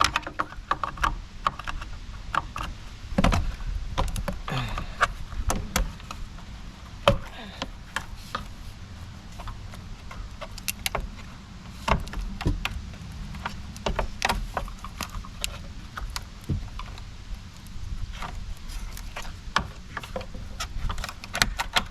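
Hand-tool work on a car's front end: irregular clicks, knocks and rattles of tools and plastic trim pieces being handled and pried loose, over a low steady hum.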